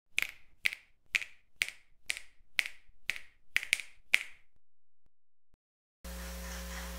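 Finger snaps in an even beat, about two a second, around nine in all, stopping a little past four seconds in. About six seconds in, a steady low electrical hum begins.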